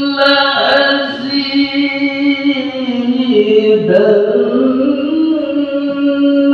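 A man's voice reciting the Quran in melodic tilawah style into a handheld microphone. He sings one long, ornamented line of held notes whose pitch sinks through the middle and climbs again near the end.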